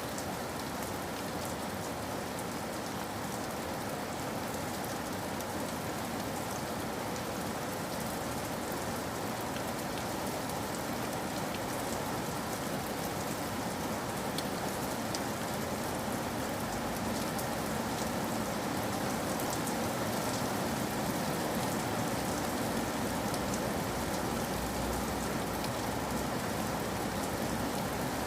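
Steady rain falling in a forest, a dense even hiss of drops with scattered sharper drip ticks, swelling slightly louder about two-thirds of the way through.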